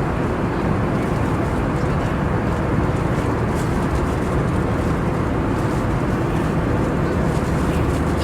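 Steady, even drone of an airliner cabin in flight: engine and airflow noise, strongest in the low range, with no change.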